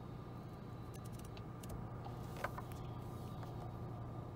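Small plastic clicks and one sharper knock about halfway through, from a handheld push-to-talk speaker microphone on a coiled cord being handled and put away, over a steady low hum.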